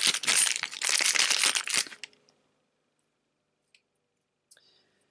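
Clear plastic bag crinkling as hands open it and handle it to get at the metal coins inside. The crinkling stops about two seconds in, and a couple of faint clicks follow.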